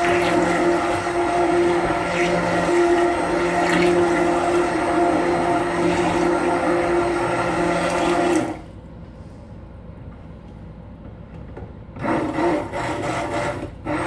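Stick blender running steadily in thick soap batter for about eight seconds, then switching off; a second short burst of blending follows near the end.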